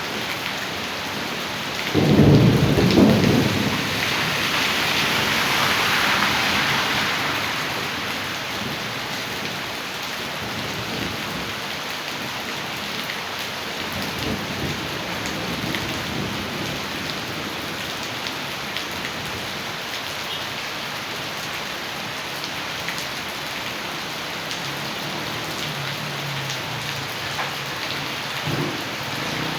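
Heavy rain falling steadily. A loud clap of thunder comes about two seconds in, and its rumble dies away over the next several seconds.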